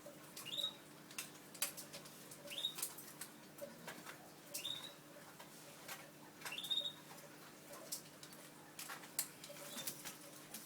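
Faint high chirps from canaries, each rising quickly in pitch, about one every two seconds, among light clicks and rustling movements.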